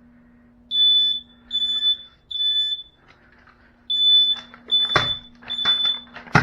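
Smoke detector alarm sounding in the three-beep fire pattern in response to a smoke test: three loud high-pitched beeps, a pause, then three more. Sharp knocks come in the second half, the loudest near the end.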